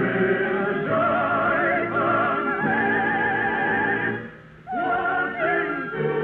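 Operatic singing with orchestra: voices hold long notes with vibrato over the accompaniment. The music breaks off briefly about four seconds in, then resumes.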